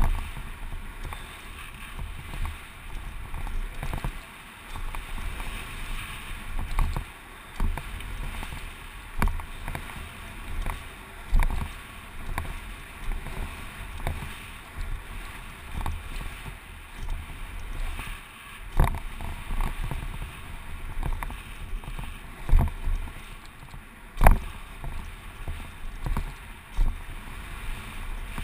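Wind buffeting the microphone and tyres rolling fast over a dirt and gravel trail, with frequent sharp rattles and knocks from a Giant Glory downhill mountain bike as it runs over bumps; the loudest knock comes about 24 seconds in.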